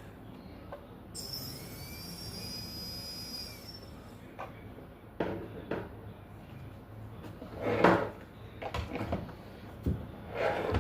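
A high-pitched electric whine for about two seconds near the start, like a small RC motor or servo running, then a series of knocks and clatters from parts being handled, the loudest about eight seconds in.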